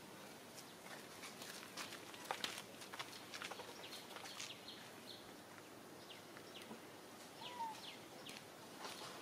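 Faint outdoor ambience: scattered light clicks and taps, with a few short high chirps from birds in the second half and one brief whistled note a little after seven seconds.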